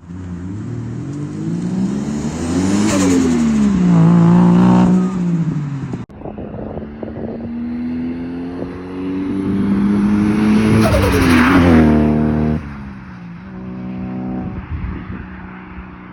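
Turbocharged Toyota 1G-FE inline-six in a Lexus IS200, with a GT2871 turbo, pulling hard twice. Each time the revs climb, then drop as the throttle closes, with a burst of hiss and turbo flutter. Near the end it settles to a lower, steady run.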